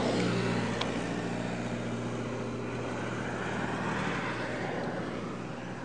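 An engine running steadily somewhere off-picture, a low unbroken drone.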